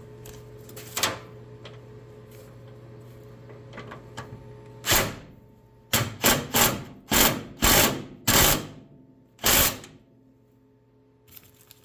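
Cordless power driver run in about seven short trigger bursts, snugging up a bolt, with most of the bursts coming between about five and ten seconds in.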